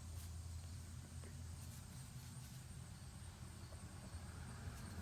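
Quiet background with a steady low hum and faint hiss; no distinct tool or part sounds stand out.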